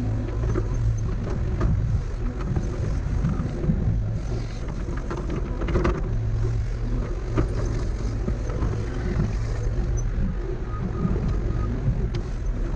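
CAT excavator's diesel engine running steadily at working speed while digging and moving dirt, with scattered knocks and clanks through it.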